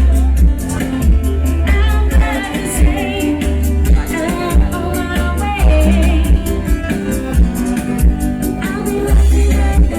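Recorded pop music with singing over a steady beat and heavy bass.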